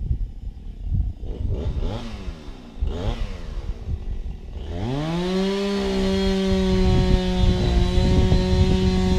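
A two-stroke chainsaw revs up to full throttle about five seconds in, after a low rumble, and holds a steady high-pitched run. Its pitch dips slightly and a rough crackle joins in near the end as the chain bites into wood.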